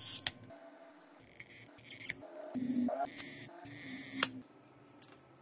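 Small handling sounds of hands-on phone repair work: a few sharp clicks and brief high swishing or scraping sounds, separated by quiet stretches.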